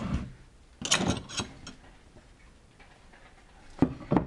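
Carving chisels and a pine board handled on a wooden workbench: a cluster of sharp clicks and knocks about a second in, then two sharp knocks near the end as the board is put to the bench.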